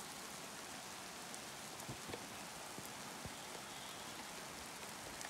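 Rain falling steadily: a faint, even hiss with a few louder drop ticks here and there.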